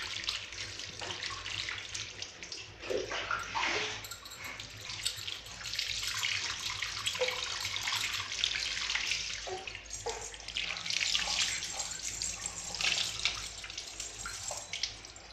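Water poured from a plastic mug over a baby's back, splashing off skin and hands onto a tiled floor while the back is rubbed. The pouring comes in uneven spurts, louder and softer as the flow changes.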